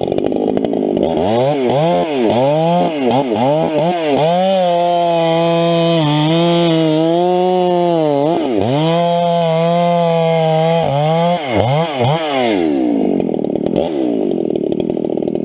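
Two-stroke chainsaw revved in a series of quick throttle blips. It is then held at high revs for several seconds, with a short dip in the middle and a few more blips, before dropping back to idle near the end.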